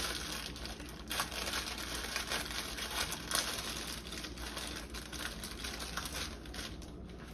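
Plastic wrapper of a Maruchan instant ramen packet being torn open and crinkled in the hands, a dense crackling that thins out near the end.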